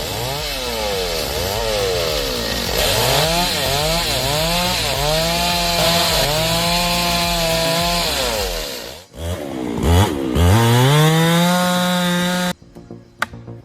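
Chainsaw cutting wood, its engine pitch rising and falling again and again as it cuts. About nine seconds in it drops off briefly, then revs back up and holds high before cutting off suddenly near the end.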